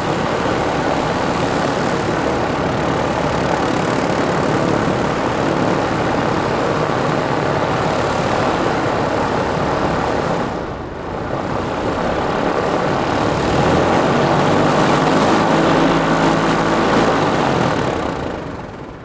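Robin DR400/140B light aircraft's piston engine and propeller running steadily on the ground while taxiing. The sound dips briefly about eleven seconds in, grows louder with a clear engine hum, then fades away near the end.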